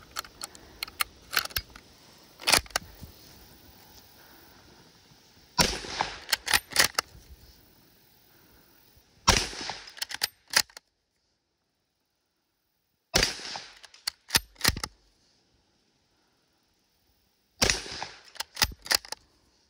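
1891 Carcano long rifle in 6.5 Carcano: metallic clicks as a six-round en bloc clip goes into the action and the bolt is closed, then four shots about four seconds apart. Each shot is followed by the clacks of the bolt being worked to chamber the next round.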